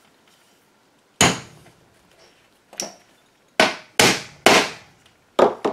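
Small nails being hammered through wet goat-skin rawhide into the wooden rim of a bodhrán: about seven sharp taps. One comes about a second in and a lighter one follows, then five come more quickly near the end.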